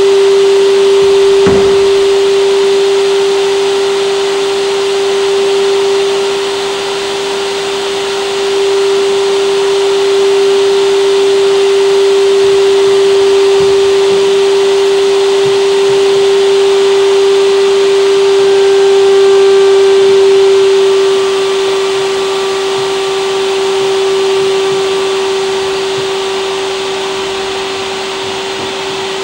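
A loud, steady electronic drone held on one mid pitch over a hiss, with a dull low thump about a second and a half in.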